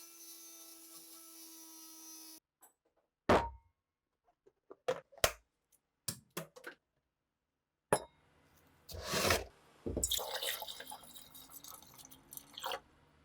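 A steady pitched hum that cuts off about two and a half seconds in, then a run of separate sharp clicks and knocks, with a rougher scraping stretch of clicks near the end.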